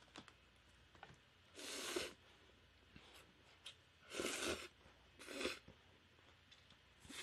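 Slurping pho rice noodles: four short, hissy slurps a second or two apart, with faint clicks between them.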